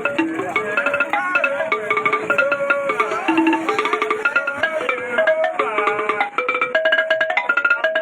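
Music: a fast, steady run of short pitched notes stepping up and down in a repeating pattern.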